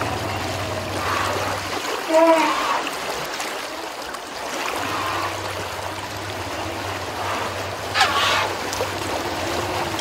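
River water flowing and splashing around wading elephants. It is broken by a short pitched call about two seconds in and a shriller call about eight seconds in.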